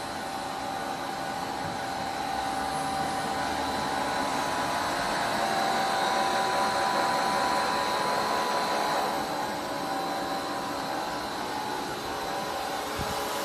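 Machinery running steadily: an even mechanical hum with several held tones and a high steady whine, a little louder in the middle.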